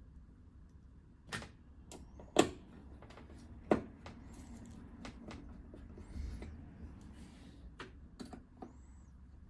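Sharp clicks and knocks of screws and a screwdriver on a television's steel frame being screwed back together: three loud clicks in the first four seconds, then fainter ticks.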